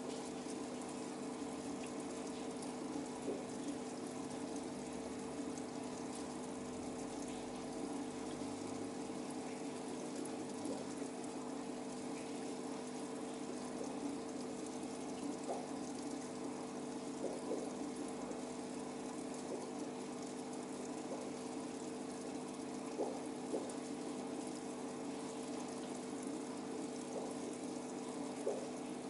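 Aquarium pump humming steadily, with water bubbling and a few faint clicks scattered through.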